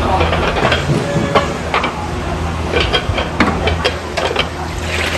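Soup being ladled in a kitchen: a metal ladle scraping and clinking against a big pot and black serving bowls, with scattered short knocks of bowls being handled, over a steady low hum.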